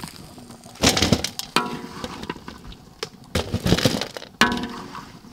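A metal spatula scraping a steel wok, and crispy fried chicken pieces clattering onto a stainless steel plate, in several separate rattling bursts.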